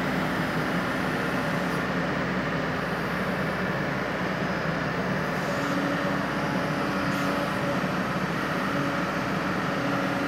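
Kobelco excavator's diesel engine running steadily, with a slightly higher hum coming in twice in the second half.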